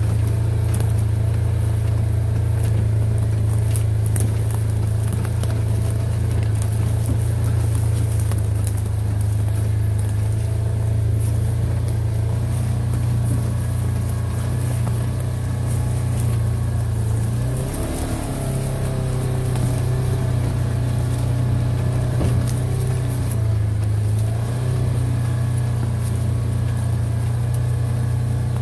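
Small off-road vehicle's engine running steadily at low speed. It eases off briefly about two-thirds of the way in, and again a few seconds later, before picking back up.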